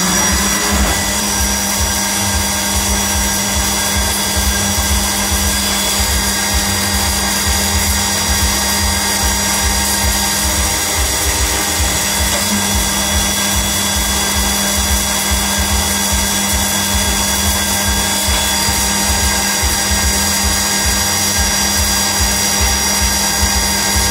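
Milling spindle of a Mazak Integrex 35 mill-turn machine running at a steady high speed with a high-pitched whine, milling a blue plastic bar under a hissing spray of flood coolant.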